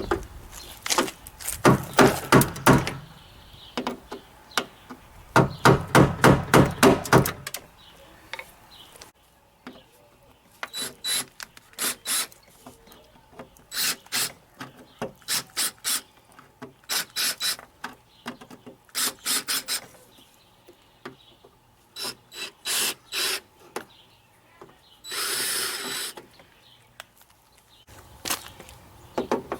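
Power drill drilling out the rivets that hold a plastic door handle to a truck door's sheet metal. It makes two runs of about two seconds near the start, then many short stop-start bursts, and one noisier burst of about a second near the end.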